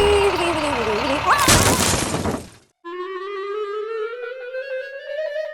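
Cartoon music and sound effects: a busy mix with a sliding tone and a crash about one and a half seconds in. It cuts off suddenly, and then a single woodwind-like note rises slowly in pitch.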